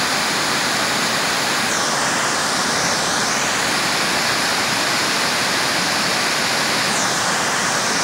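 Water pouring over a dam spillway in a steady, even rush, the creek running high after recent rains.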